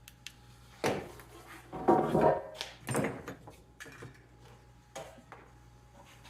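Small metal engine parts and hand tools clinking and knocking on a workbench, about six separate clanks spread out, some with a short metallic ring.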